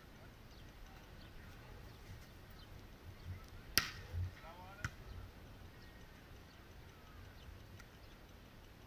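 A sharp smack of a hand striking a beach volleyball on a serve, with a second, lighter hit about a second later, over a low wind rumble.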